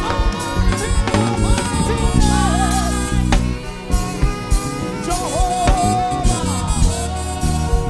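Live gospel praise music: a singer's voice in bending, melismatic runs over a band with drum kit and sustained chords.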